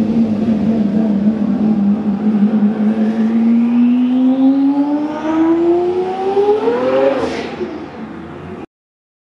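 Lamborghini engine accelerating hard, its note climbing steadily through a long pull, then peaking and dropping away near the end as the sound fades and cuts off abruptly.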